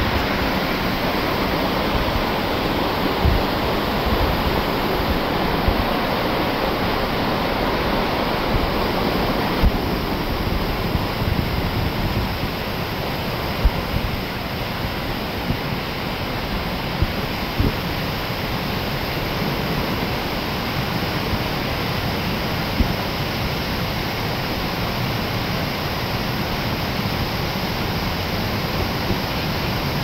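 Multnomah Creek rushing over rocks at the top of Multnomah Falls: a steady, unbroken rush of falling water.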